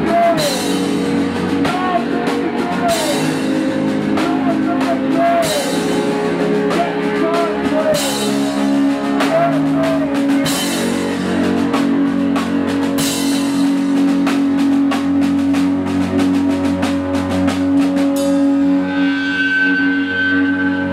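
Live rock band playing: drum kit with regular cymbal crashes, electric guitar and bass with sustained, bending notes. About eighteen seconds in, the drums drop out, leaving held guitar tones.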